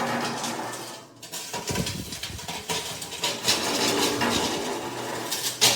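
Metal clinking and scraping of barbecue gear being handled, with a sharp knock near the end.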